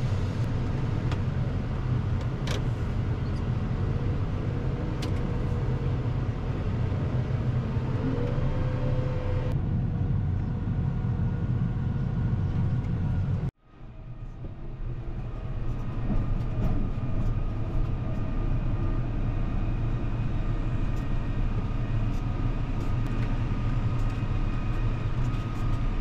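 Tractor engine running steadily, heard from inside the cab as a low drone. It drops out briefly about halfway through and then comes back.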